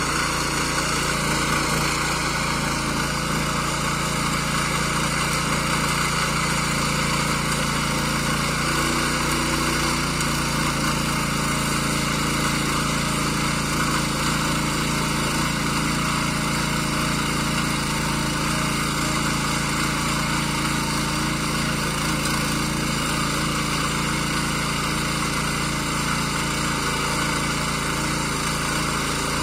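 Kaan 26s garden tiller's small engine running steadily under load as it tills medium-hard soil.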